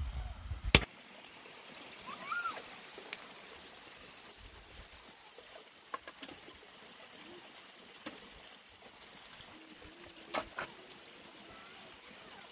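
Quiet outdoor ambience with a faint steady hiss. A brief low rumble ends in a sharp knock just under a second in, followed about two seconds in by a short rising-and-falling chirp, and a few faint ticks later on.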